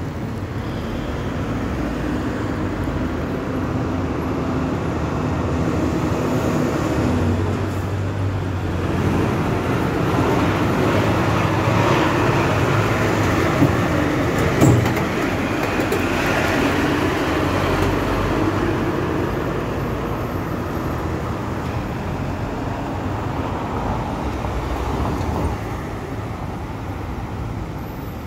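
Street traffic with a heavy diesel truck, a concrete mixer truck, passing close by, its engine noise swelling to its loudest in the middle and then fading. Two sharp knocks come at about its loudest point.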